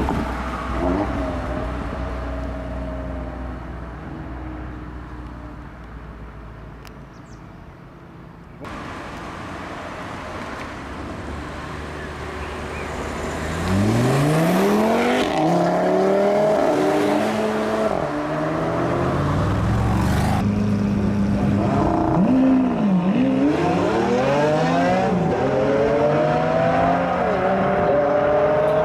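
Audi RS3 8V's turbocharged five-cylinder engine through its exhaust. At first the engine note fades away, then about halfway in it turns loud and revs, the pitch climbing and dropping several times.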